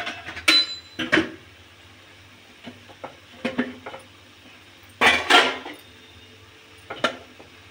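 Steel spoon scraping and knocking against a metal kadai as a thick garlic-chilli paste is stirred: scattered sharp clinks about a second apart, with a longer burst of scraping and clanking about five seconds in.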